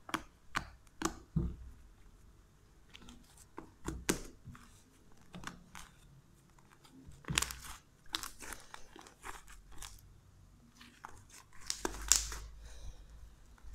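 Homemade glue-and-starch slime squeezed, stretched and pulled apart by hand, giving irregular small crackles, pops and sticky snaps. A louder crackle comes about halfway through, and a longer crackling stretch near the end.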